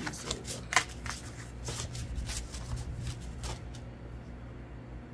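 A stack of handmade paper oracle cards being handled and shuffled: a quick run of papery flicks and rustles that stops a little before four seconds in.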